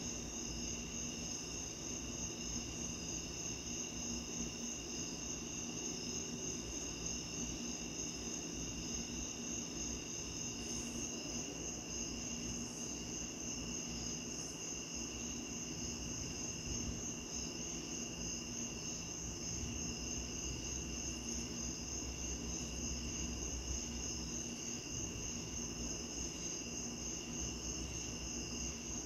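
A steady chorus of night insects trilling at several high pitches, each a fast, even pulsing, over a low steady background rumble.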